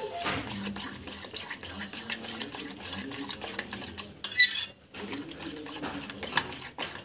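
Semolina, bread and curd batter being mashed and mixed by hand in a steel pot, with a run of small knocks and clicks against the metal. A brief, louder, sharper sound comes about four and a half seconds in.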